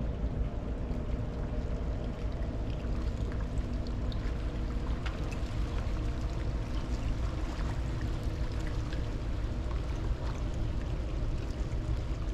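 Boat under way: a steady low engine rumble with rushing water.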